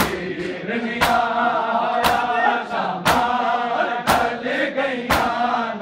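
A group of men chanting a noha together, punctuated by loud, sharp matam strikes, many bare hands beating chests in unison about once a second.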